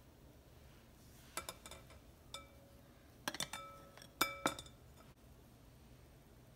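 A glass bowl clinking against a stainless steel mesh sieve and glass mixing bowl as flour is tipped in. About seven light clinks, mostly in pairs, each ringing briefly.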